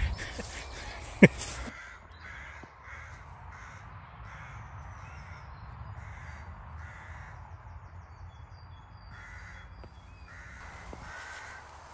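Crows cawing over and over, with a single sharp knock about a second in and a few faint high chirps from a small bird later on, over a low steady rumble.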